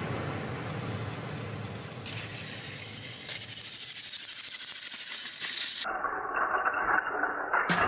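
Battery-powered Plarail toy train engines running along plastic track: the small electric motor and gearbox give a steady whir with fast, fine clicking. About six seconds in, it cuts abruptly to a different sound.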